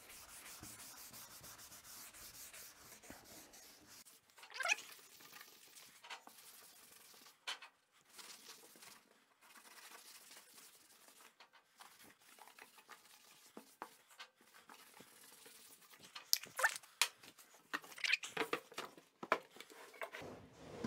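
Paste wax being rubbed by hand onto the underside and runners of a wooden crosscut sled: a soft, steady rubbing with a few light knocks. Near the end come several knocks and bumps as the sled is handled and turned over on the table saw.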